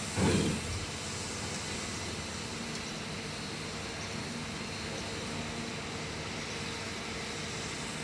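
Steady background hum of running engines and traffic, with one brief loud sound falling in pitch just after the start.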